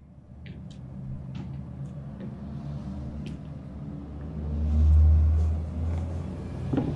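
Low rumbling drone of a film score, with held low notes, swelling to its loudest about five seconds in and easing off again, with a few faint clicks over it.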